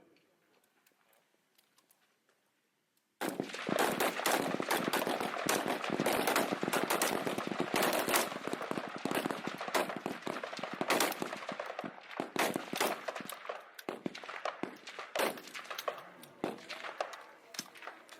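Many M16 rifles firing at once from a firing line: near quiet, then rapid, overlapping shots start suddenly about three seconds in and keep going, growing sparser near the end.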